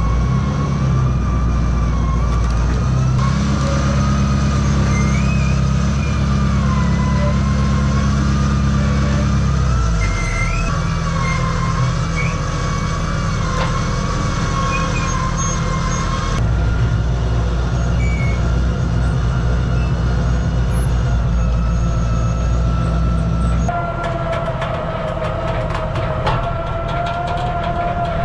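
Roll-off container truck's hydraulic hoist and winch pulling a dumpster up onto the tilted bed: the truck engine runs steadily under a wavering whine, its note changing a few times as the load comes up, with a new steadier whine and light clanks near the end.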